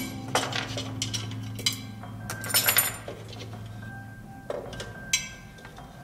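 Small metal parts clinking and rattling as chainring bolts are removed and a road bike crankset's chainrings are lifted off the spider and handled on a workbench. A dozen or so light knocks and clinks come at irregular moments, over soft background music.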